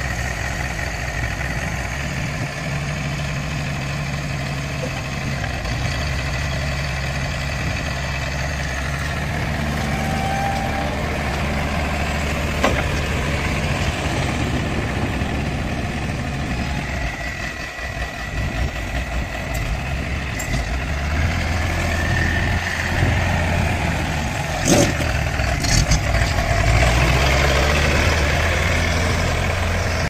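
Engine of a wheeled highway pile driver running steadily as the machine drives about. Its note drops and grows louder about two-thirds of the way through, and a few sharp knocks stand out near the middle and later on.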